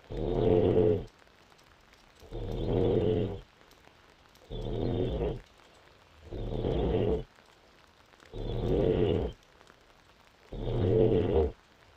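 A sleeping woman snoring: six rough snores in an even rhythm, about two seconds apart, each lasting about a second with quiet breaths between.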